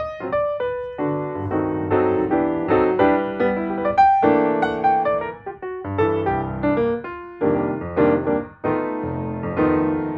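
Piano music: a steady run of struck notes and chords, each note starting sharply and fading away.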